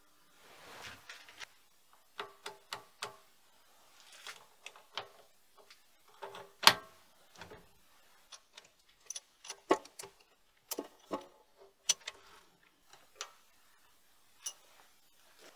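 Irregular clicks, clinks and light knocks of small steel parts handled at a lathe's quick-change toolpost, some with a short metallic ring. One sharp knock about six and a half seconds in is the loudest.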